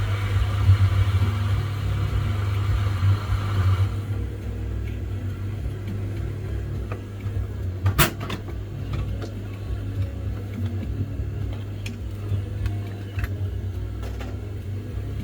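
Steady low electrical hum with a hiss of blowing air that cuts off abruptly about four seconds in, followed by scattered small clicks and taps, the sharpest about eight seconds in.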